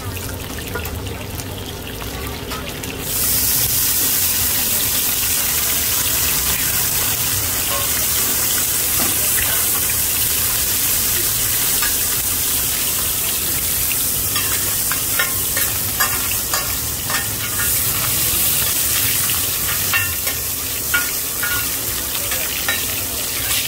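Mussels in batter (hoi tod) frying in hot oil on a pan, a steady sizzle that grows suddenly louder about three seconds in. In the second half a utensil clicks and scrapes against the pan.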